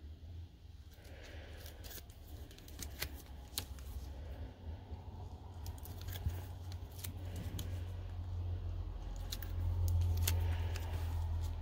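Paper-crafting handling sounds: irregular small clicks and snips as adhesive tape and card stock pieces are worked by hand. A low rumble underneath grows louder near the end.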